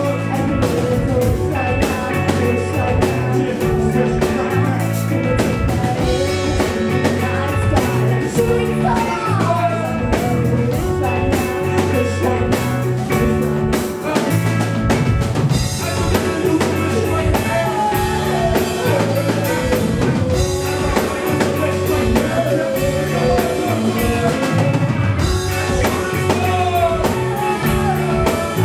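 Live band music: drum kit, guitar and keyboards playing a steady beat with a voice singing over them.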